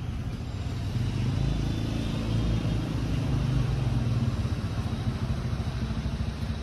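Motorbike engines running nearby in street traffic, a steady low rumble.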